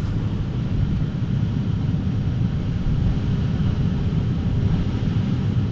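Truck's heater blower motor running steadily with a low, even rumble, working again after its resistor connector was repaired.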